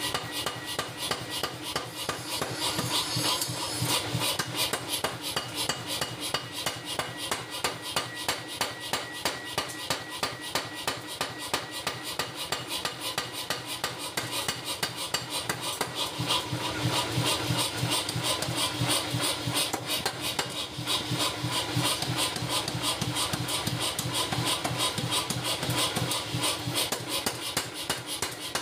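Power hammer pounding a red-hot steel cleaver blank on its anvil die in a fast, steady run of blows as the blade is forged out.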